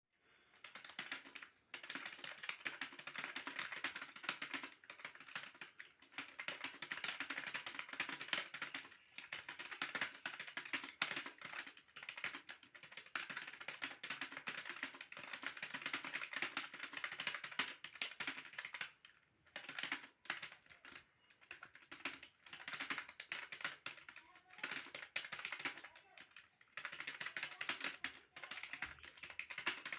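Fast typing on a computer keyboard: long runs of rapid keystrokes broken by short pauses every few seconds, with longer breaks about 19 and 25 seconds in.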